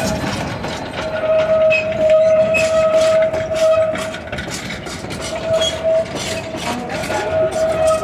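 A train of open-sided passenger cars rolling past, its wheels clicking over the rail joints, with a steady high tone that comes and goes.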